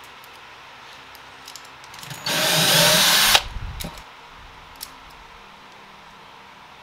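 A power drill runs once for about a second, around two seconds in, driving a screw to mount a concealed cabinet hinge.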